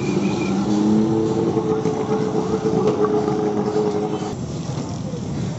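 A motor vehicle's engine running close by, a steady hum for about three seconds, over the constant hiss of street noise and khajla deep-frying in a large wok of oil.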